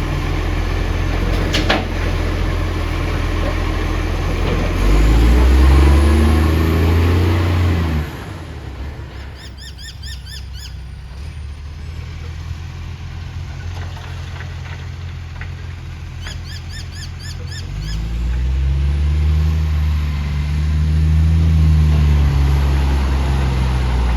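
Bus engine with a loud exhaust leak, pulling hard twice: the pitch climbs and then eases about five seconds in and again from about eighteen seconds, with a quieter running stretch in between. Birds chirp briefly during the quieter part.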